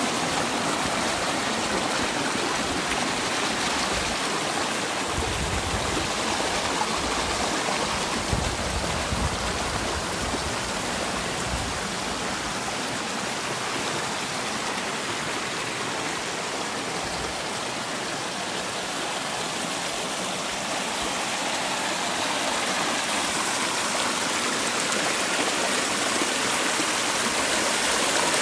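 Shallow stream water rushing and splashing over granite slabs, a steady close-up rush, with some low rumbling in the first half.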